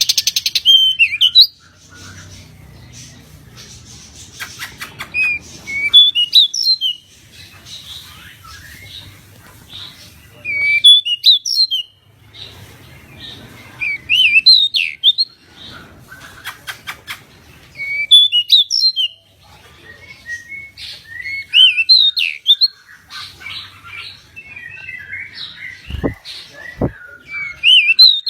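Pied bushchat (decu) singing: short, loud whistled phrases that slur up and down, repeated about every four seconds, with quick rattling clicks between some of them. Two low thumps come near the end.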